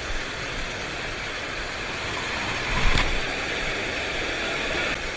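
Heavy surf breaking on rocks: a steady roar of white water, with one louder thump about three seconds in.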